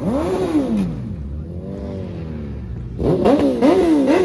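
An engine revved hard in repeated blips, its pitch shooting up and dropping back: one rev at the start, a slower, quieter rise and fall in the middle, then quick louder blips about twice a second near the end.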